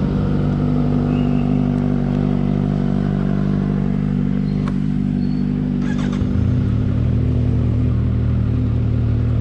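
Kawasaki Z1000R's inline-four engine on its stock exhaust, running steadily at low revs. Its low note changes about six seconds in.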